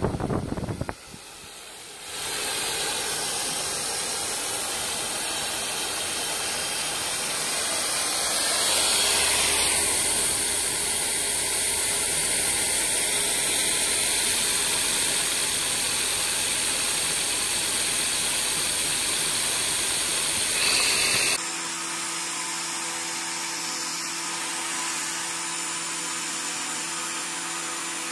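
Electric hand drill running steadily, spinning a propeller, with a steady high hiss from the motor and the moving air. About 21 seconds in, the sound changes abruptly to a steadier hum with several clear tones.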